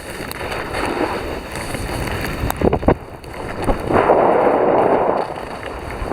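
Wind rushing over the microphone while skiing downhill, swelling into a strong gust about four seconds in, with a few sharp clicks near the middle.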